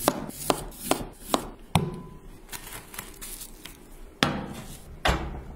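Kitchen knife slicing through peeled raw potatoes onto a plastic cutting board: five sharp chops, about two a second. Later, two louder knocks as a ceramic bowl is set into a steam oven.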